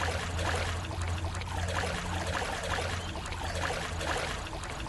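Water trickling and dripping, with a steady low hum underneath.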